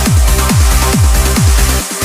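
Electronic dance music with a heavy kick drum on every beat, a little over two beats a second, over a sustained low bass line that briefly drops out near the end.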